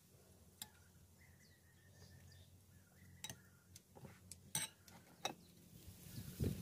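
Metal spoon clinking against a glass soup bowl and a plate: a few light clinks, most of them between about three and five seconds in, then faint chewing near the end.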